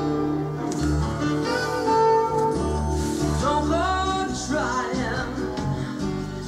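A pop song played through a stereo with an Onkyo SKW-320X subwoofer turned up, its held bass notes pulsing underneath. A singing voice comes in about halfway through. The camera's built-in mic picks up little of the deep bass.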